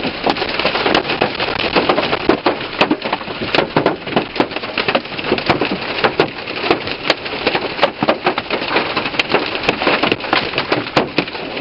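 Hailstones pelting a Chevy Suburban, heard from inside the cabin: a dense, irregular barrage of hard knocks on the roof, body and glass over a steady hiss of rain, loud throughout.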